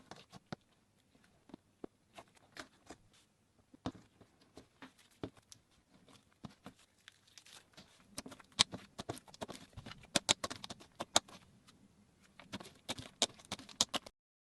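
Slime being squeezed and worked by hand, making a run of sticky clicks and pops. They are sparse at first and come thick and louder from about halfway, then stop just before the end.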